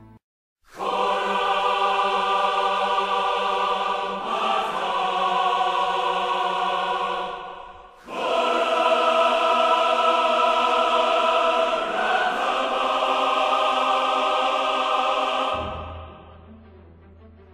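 Background music: a choir holding long sustained chords in two phrases of about seven seconds each, the chord shifting partway through each phrase. Softer music follows near the end.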